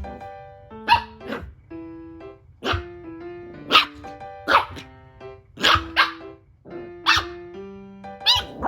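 Shiba Inu barking in a string of about nine short, sharp barks, over background music.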